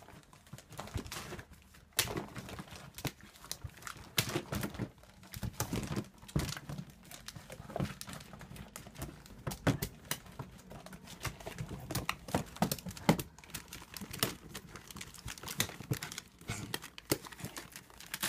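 Paper and plastic rustling and crinkling, with irregular knocks and crackles, as a small dog scrambles around inside a plastic bin of wrapping-paper rolls.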